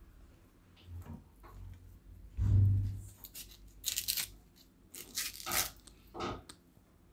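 A steel spoon scraping pulp and seeds out of a split bael fruit's hard shell, in several short scraping strokes. The loudest sound is a dull thump about two and a half seconds in.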